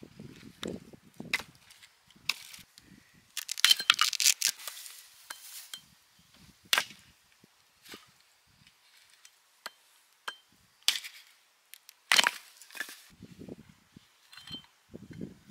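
Irregular knocks, clicks and clatters of objects being handled, some woody and some clinking, with a dense flurry about a third of the way in and a few sharp single hits later.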